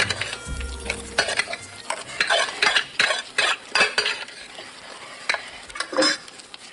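A spoon scraping and clinking against a plate in quick, irregular strokes as someone eats, busiest in the first four seconds with one more scrape near the end.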